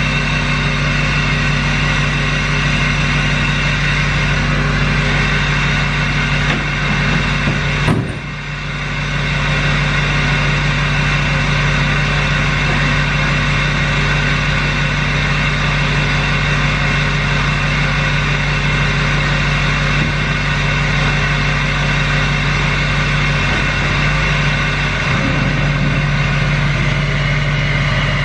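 Truck engine idling steadily, with a brief knock about eight seconds in.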